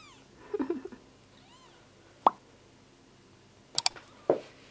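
A newborn kitten gives a few thin, high mews, each rising and falling in pitch. Then come a sharp pop and a quick run of clicks from a subscribe-button overlay sound effect.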